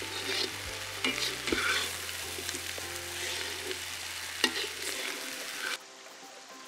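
Spiny gourds frying in oil in a large metal kadai, sizzling, while a slotted metal spoon scrapes and stirs them around the pan, with a sharp clink of spoon on pan about four and a half seconds in. The sound drops quieter near the end.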